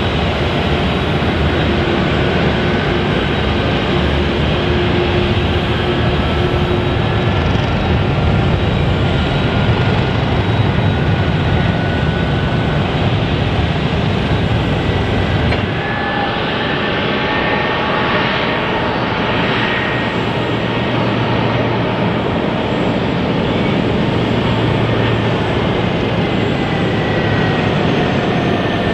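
Jet airliner engines running: a steady, loud rumble and hiss with faint whines that slide slowly in pitch. About halfway through the sound changes abruptly and the deep rumble drops away.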